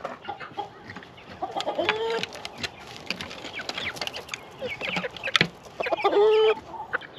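A flock of chickens clucking, several birds calling over one another in short clucks, with a louder, drawn-out call about six seconds in.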